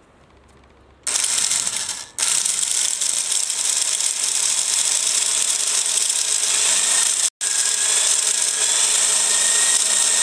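Handheld electric drill running as it bores a small pilot hole into the end grain of a wooden beam. It starts about a second in, stops for an instant just after, and runs on with another instant's break about two-thirds through.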